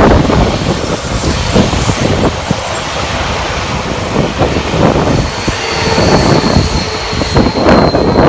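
Seibu Railway electric train passing close by, its wheels clattering and knocking over the track. A thin, high, steady wheel squeal sets in about halfway through.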